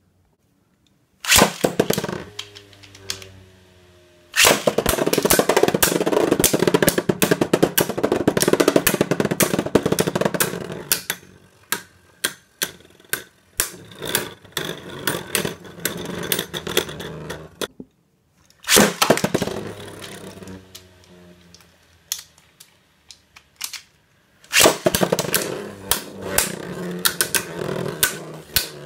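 Beyblade Burst tops launched into a plastic stadium: each round opens with a sharp launch, then the tops spin with a steady hum and clash into each other and the stadium walls in a rapid, dense rattle that dies away. Two rounds, the second starting about two-thirds of the way in.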